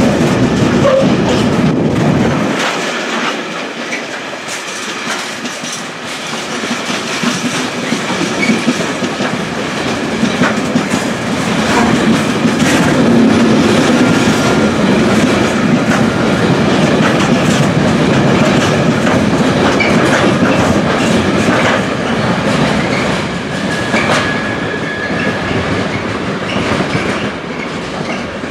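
A freight train's empty open box wagons rolling past close by, with steady wheel rumble and repeated clicking of wheels over rail joints. A few faint, brief wheel squeals come through.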